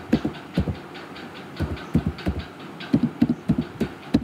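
Computer keyboard keystrokes: a password being typed in quick, uneven runs of key presses with short pauses between them.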